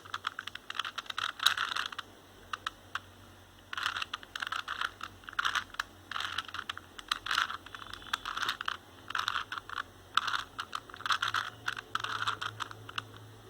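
A 4x4x4 Rubik's cube's plastic layers being turned by hand: quick clicking, rattling turns in about seven short runs separated by brief pauses. The turns are a move sequence that inserts an edge piece beside its centre.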